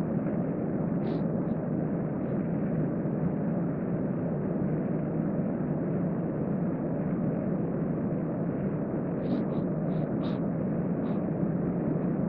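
Steady, even rushing background noise, with a few brief high chirps about a second in and again near the end.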